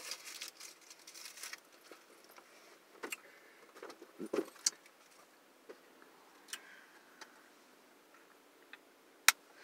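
Small items rummaged through and handled beside a car seat: rustling at first, then scattered sharp clicks and clinks. A small plastic bottle is handled near the end, where the loudest, sharpest click comes.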